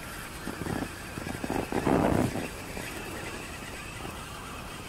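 Outboard motor running steadily, pushing the boat along, with a short louder rustle-like burst about two seconds in.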